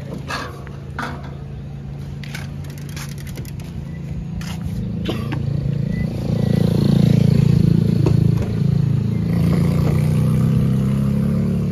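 A motor vehicle engine running close by, a low steady hum that grows louder about halfway through. A few sharp clicks and knocks come in the first few seconds.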